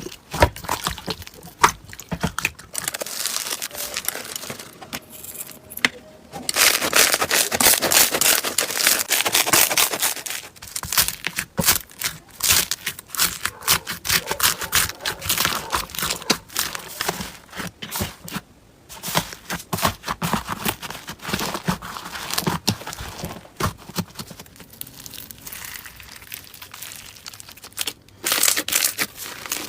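Hands squeezing, stretching and pressing slime, giving a dense, irregular run of crackling pops and clicks, loudest from about seven to ten seconds in.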